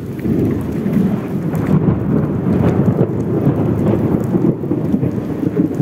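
A long roll of thunder rumbling loudly over steady rain falling on the street.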